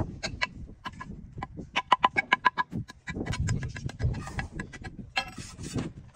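Masonry work: a steel trowel clinking and tapping on concrete blocks, with a quick run of ringing taps about two seconds in, and mortar being scraped and spread in short rasping strokes.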